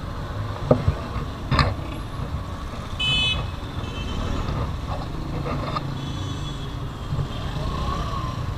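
Motorcycle engines and street traffic rumbling steadily, with two sharp knocks in the first two seconds and a short horn beep about three seconds in.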